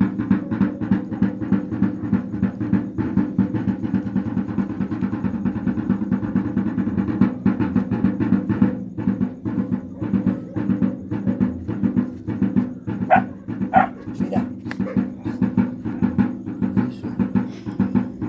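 Wayuu kasha drum beaten in a fast, steady rhythm for the yonna dance. Two short, sharp calls ring out over it about thirteen seconds in.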